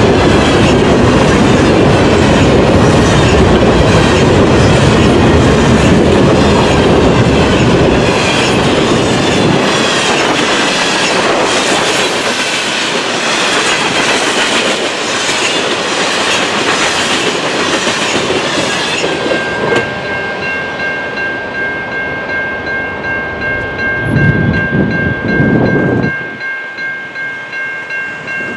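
CN freight train of covered hopper cars rolling past close by, the wheels clattering loudly. After about two-thirds of the time the train noise thins and a level-crossing bell can be heard ringing about twice a second. A last heavy rumble passes and cuts off, leaving the bell ringing alone as the train clears the crossing.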